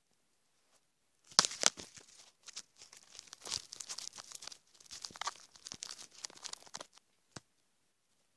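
Handling noise: fingers rub and shift against the recording phone's microphone, making a crackling, rustling sound. It starts sharply about a second in and runs for about five and a half seconds, followed by a single click.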